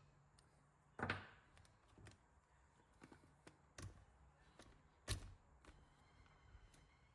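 Faint clicks and knocks of a radio-controlled model truck's chassis, wheel and small wrench being handled on a work mat, the two loudest knocks about a second in and about five seconds in.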